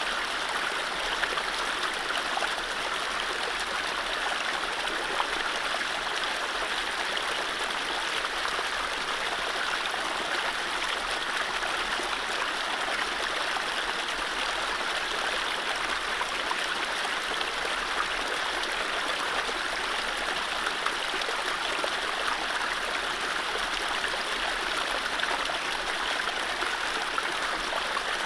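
Mountain stream flowing over low rapids: steady rushing and splashing water, even throughout.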